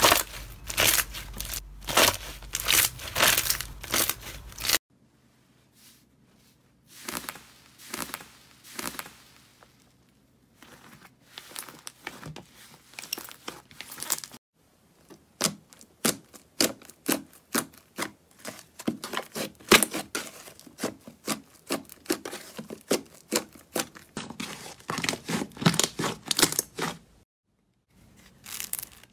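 Hands squeezing, kneading and stretching slime: dense runs of sticky clicks and crackles, in several stretches with brief quiet breaks between them.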